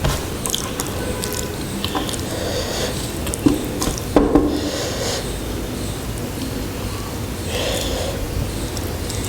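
Close-up eating sounds of rice with egg curry: wet chewing and mouth noises with a few small clicks, and breaths through the nose at about five and eight seconds in.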